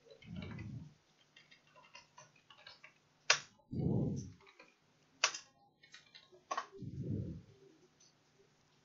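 Faint computer-keyboard typing in the first few seconds, then three sharp clicks roughly a second and a half apart. Soft, low muffled sounds come in between.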